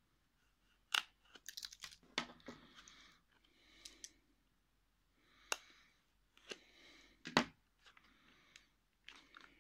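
Swiss Army knife blade slitting the sealing tape along the seam of a small cardboard box: short scratchy cutting strokes, with three sharp clicks where the blade catches or taps the box edge.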